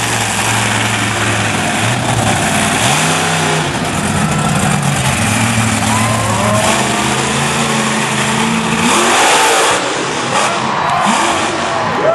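Monster truck engine running loud and revving as the truck drives over dirt mounds, with the revs rising about three seconds in and climbing hardest near nine seconds.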